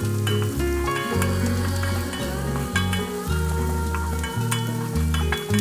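Sliced chilies, shallots and garlic sizzling in oil in a wok, stirred with a wooden spatula that scrapes and taps the pan now and then. Background music with a bass line plays over it and is the loudest thing.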